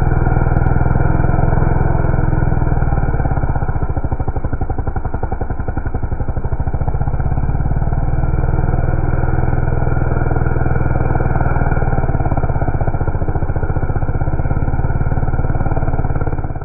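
Two-stroke McCulloch chainsaw engine running flat out while cutting wood, a steady fast firing buzz that dips slightly partway and stops at the very end.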